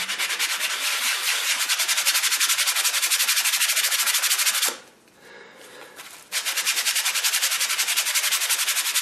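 Sandpaper on a small backing block rubbed quickly back and forth over a steel plane iron in fast, even strokes, scrubbing off rust. The strokes stop for about a second and a half midway, then resume.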